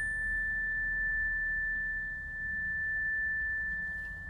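Outro sound effect: a single high, pure ringing tone held steadily like a sustained chime, over a faint low rumble.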